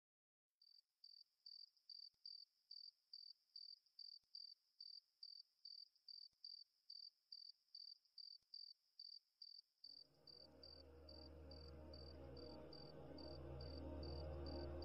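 Faint cricket chirping, an even pulse of about three chirps a second. About ten seconds in, a low music drone fades in and swells beneath it.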